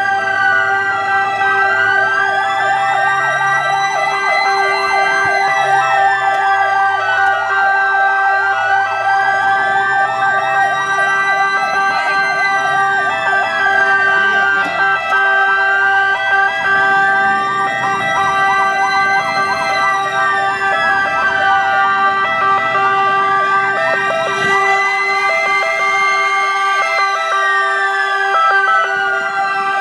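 Several ambulance sirens sounding at once. Slow wails rise and fall over and over, a fast warbling siren sounds through about the first half, and steady held tones run under them.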